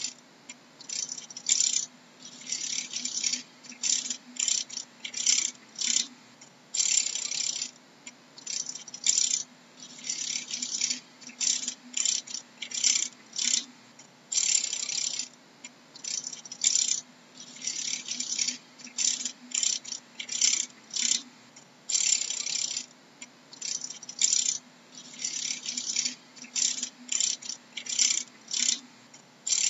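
Dragonfly wings rattling in short, irregular high-pitched bursts, a fraction of a second to about a second each, over a faint steady low hum.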